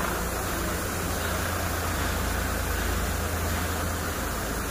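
Crane engine running steadily, a low rumble under an even hiss, while it holds a thresher machine aloft on its hook; the low rumble drops away about four seconds in.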